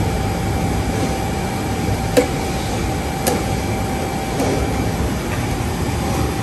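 Steady mechanical hum of a commercial kitchen, with a faint steady tone running through it. Two light clicks about a second apart, the first a little over two seconds in.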